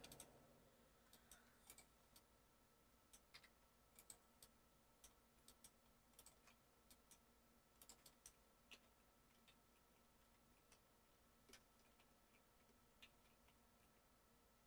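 Near silence broken by faint, irregular clicks of a computer mouse and keyboard, most of them in the first nine seconds and fewer after.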